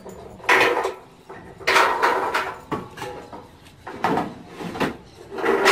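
Homemade welded sheet-steel bumper knocking and scraping against the truck's front frame bar as it is pushed and seated into place, in a series of separate clunks and scrapes.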